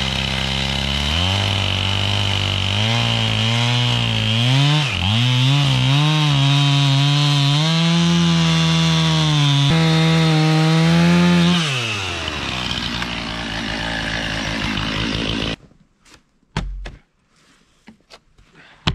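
Two-stroke chainsaw at full throttle crosscutting through a log, its pitch dipping and rising as the chain bogs under load. About twelve seconds in the throttle is released and the engine idles lower, then it stops abruptly a few seconds later, followed by a few light knocks.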